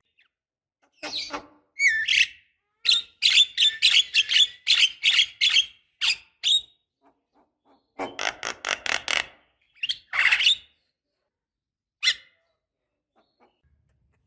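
Javan myna giving harsh, chattering calls: a rapid run of notes, about three a second, from about three to six seconds in, a second run around eight to nine seconds, and single calls near ten and twelve seconds.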